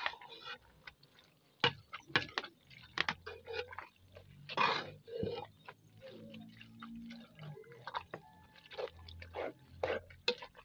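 A metal spoon stirring chopped okra into a wet leaf sauce in a metal pot: irregular clicks and scrapes of the spoon against the pot, with wet squelching.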